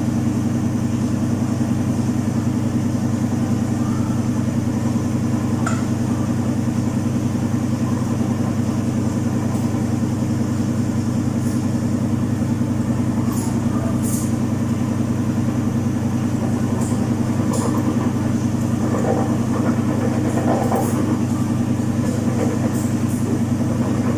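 Domus 8 kg washing machine running a full load: a steady, unbroken motor hum with the drum turning continuously at constant speed, with a few faint clicks and rattles, most of them in the second half.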